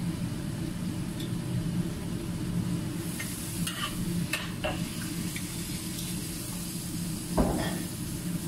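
Beef and bell peppers sizzling in a wok while a metal ladle stirs and scrapes against the pan, over a steady low rumble. The sizzle grows brighter about three seconds in, with a run of quick scrapes, and a single louder clank of metal on the wok comes near the end.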